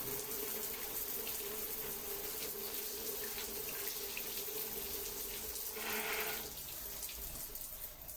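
Water running steadily, with a brief louder gush about six seconds in, after which the flow turns a little quieter.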